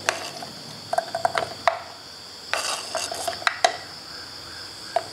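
A knife scraping and tapping on a plastic cutting board as sliced shallots and garlic are pushed off into a plastic blender jar, with small clusters of clicks and light knocks. Crickets chirp steadily in the background.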